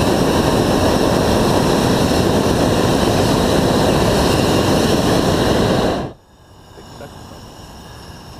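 Hot air balloon's propane burner firing in one long, loud, steady blast that cuts off suddenly about six seconds in.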